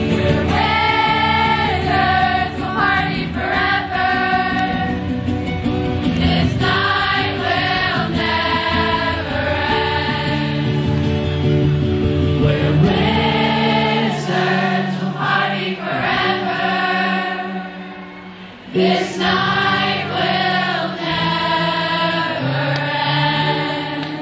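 Live song: a man singing and strumming an acoustic guitar through a PA, with many voices singing along. The music drops away briefly about three-quarters of the way through, then comes back.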